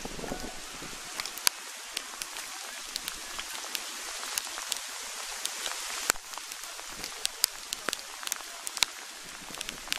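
Steady rain hiss with irregular sharp ticks of raindrops landing close to the microphone.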